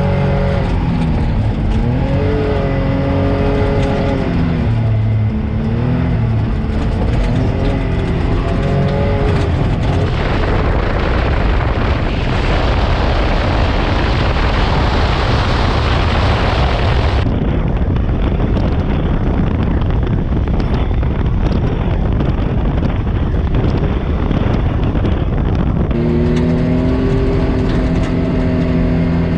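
Can-Am Maverick X3 side-by-side's engine running under way on a dirt trail, its pitch rising and falling with the throttle. About ten seconds in, the engine tone gives way for several seconds to a steady rush of tyre and dirt noise, and near the end a steady engine drone returns.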